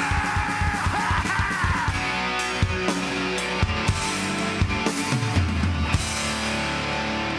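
Live hardcore punk band with distorted electric guitars and drums: fast, driving drumming breaks off about two seconds in, leaving ringing guitar chords and scattered drum hits, with one long held chord near the end as the song winds down.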